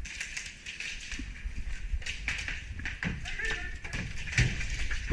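Scattered sharp clicks and taps at irregular moments over steady outdoor noise, with faint distant voices.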